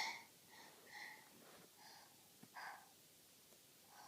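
A just-woken baby's faint breathing, with a few soft breathy puffs about a second apart, the first the loudest.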